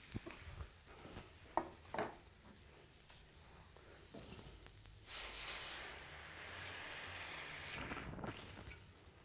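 Veal olives sizzling in a pan, with two light knocks about one and a half and two seconds in. The sizzling swells louder from about five seconds in and dies away shortly before the end.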